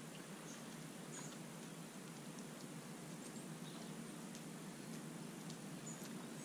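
Faint outdoor ambience: a steady low hiss with a few short, faint high chirps scattered through it.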